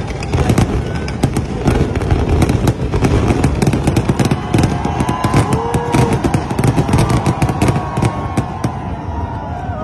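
Aerial fireworks display: a rapid, dense run of bangs and crackling from bursting shells, easing slightly near the end.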